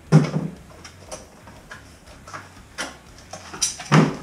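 Knocks and clicks of parts being handled in an open cardboard shipping box, with two louder thuds, one just after the start and one near the end.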